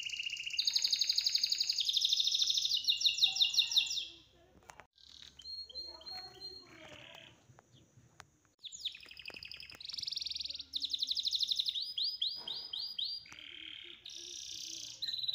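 High-pitched bird-like chirps and fast trills, repeated in phrases. They stop for a lull in the middle, where faint clicks and snips of scissors cutting fabric are heard, then start again.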